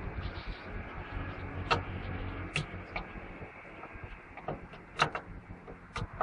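Scattered sharp clicks and knocks of metal and plastic parts and tools being handled, over a low steady rumble; the loudest knock comes about five seconds in.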